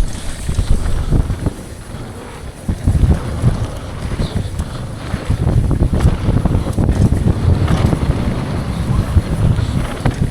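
Wind buffeting the rider's camera microphone over the rumble and rattle of a downhill mountain bike ridden fast on dirt trail, with irregular knocks from the bike over rough ground. It eases briefly about two and a half seconds in, then gets louder again.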